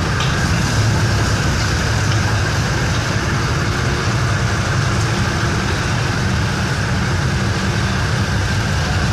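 Engine of a small four-wheeled armoured car running steadily as it drives slowly past, a constant low hum.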